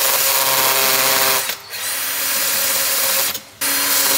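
Cordless drill running under the trigger in three runs, with two short stops, one about a second and a half in and one near the end.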